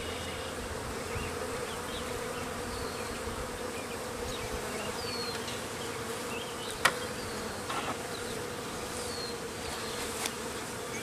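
Honeybees buzzing in a steady hum around the hive, with one sharp click about seven seconds in.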